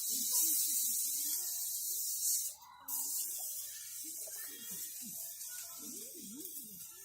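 A steady high hiss that drops out sharply for a moment about two and a half seconds in, with faint wavering pitched sounds beneath it.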